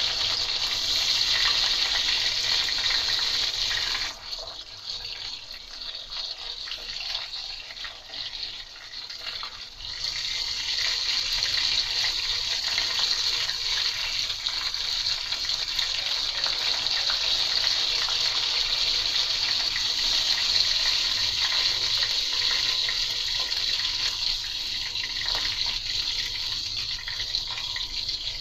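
Minced-beef chapli kababs sizzling in hot oil in a frying pan, a steady hiss. The sizzle drops quieter about four seconds in and comes back up to full strength about six seconds later.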